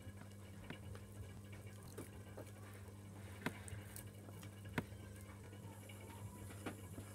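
Faint sticky, wet clicks and squelches of soft homemade dough being squeezed and pulled apart between bare hands, with a few sharper clicks scattered through. A steady low hum sits underneath.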